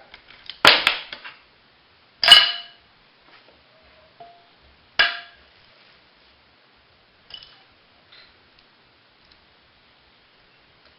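Three sharp metal clanks with a brief ring, about a second and a half apart and then after a longer gap, followed by a few faint clicks, as engine parts and tools are handled during a teardown.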